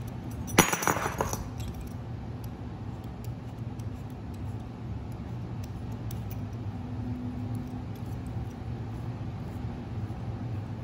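A short metallic clink and rattle about half a second in, like a small metal tool knocking on the tabletop. Then a steady low hum of room background with faint scattered ticks.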